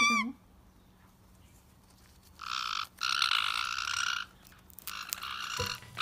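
White-bellied caiques giving harsh, raspy buzzing calls: a short one about two and a half seconds in, a longer one of over a second right after, and another near the end. It opens on the tail of a whistled call that arches in pitch.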